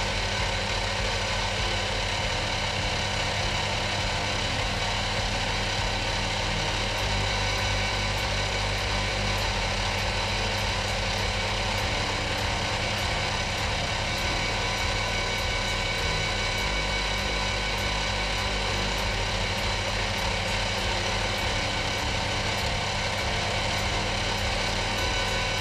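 Machine tool running steadily under power, its motor and gearing giving an even hum made of several steady tones, with faint light ticking.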